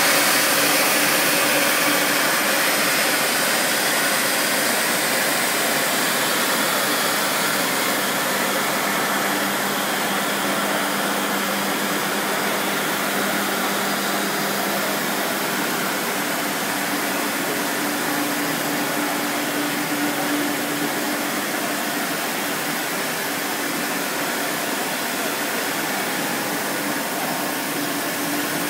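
Rubber knitted-hose production line running steadily: the hiss of water spraying from the cooling tank's nozzles over a machine hum with a faint steady tone. The sound eases slightly as the water spray falls behind.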